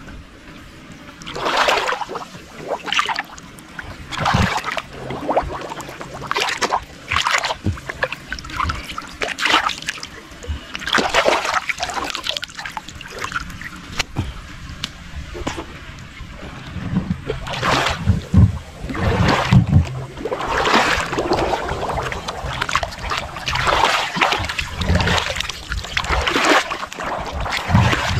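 Shallow muddy water splashing and sloshing in irregular bursts, about one every second or so, as a person wades and gropes by hand through a mud pool.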